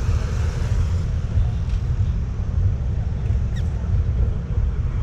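City street traffic noise: a steady low rumble of passing vehicles, with a few faint short high sounds over it.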